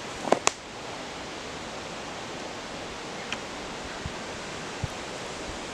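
A steady, even hiss of outdoor background noise, with two sharp knocks about half a second in and a few faint ticks later.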